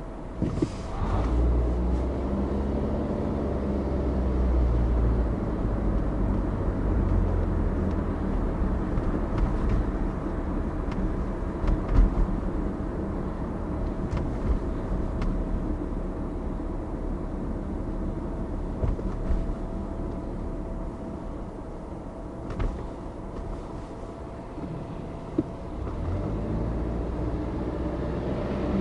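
Car engine and tyre noise while driving on a city street: the engine picks up as the car pulls away from a standstill about a second in, then runs steadily while cruising, and picks up again near the end.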